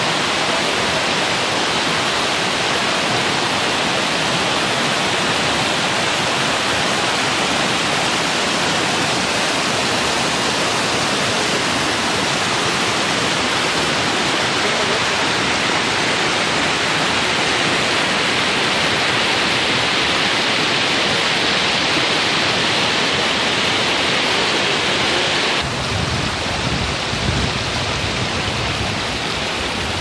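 Stream water rushing over rocks and down a waterfall cascade, a steady hiss of white water. Near the end it cuts off abruptly to a gusty, uneven low rumble of wind on the microphone.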